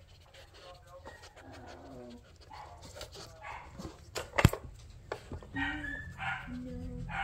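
A puppy making short whining sounds as it noses and paws a plastic treat puzzle. Scattered light plastic clicks, and one sharp, loud knock about four and a half seconds in.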